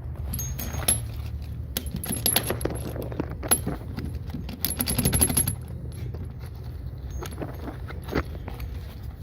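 Metal clinking and rattling of a steel threaded-rod anchor bolt with its washer and nut being handled and fitted up into a foundation's bottom plate, with a dense run of clinks in the middle.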